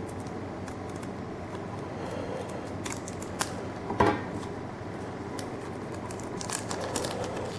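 Foil booster pack of trading cards being opened: the wrapper crinkles and clicks in short bursts, loudest about four seconds in and again near the end, over a steady low hum.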